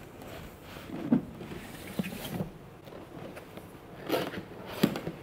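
Cardboard boxes being handled and set down on a glass tabletop: a few scattered soft knocks, scrapes and rustles, the strongest two near the end.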